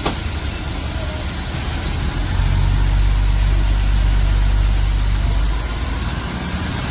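Fire truck engine and pump running with a steady low hum under a constant rushing hiss of water cannon spray. The hum swells louder for about three seconds in the middle, then settles back.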